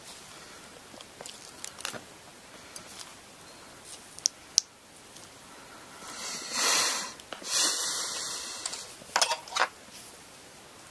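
Cord being drawn through the zori sole with a wire threading loop: two long hissing swishes, each about a second. A few small sharp clicks from handling the tools and cord come shortly before and after.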